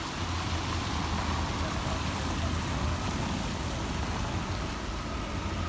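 Steady outdoor city ambience: an even low rumble and hiss with no distinct events.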